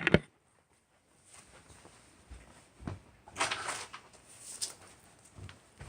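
Faint, scattered rustles and knocks of objects being handled and moved about, in a few short bursts after a near-silent first second.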